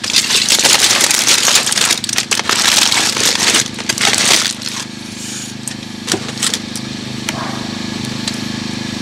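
Aluminium foil being crumpled and folded by hand, a dense crinkling for about the first four and a half seconds, then only a few light clicks. A steady low hum runs underneath.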